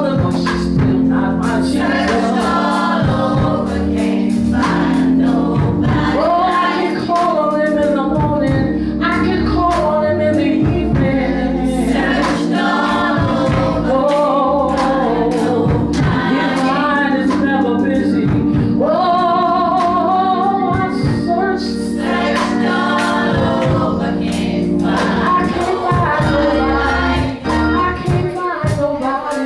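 Live gospel singing: a woman singing lead with a choir, over sustained low instrumental chords. The music thins out near the end.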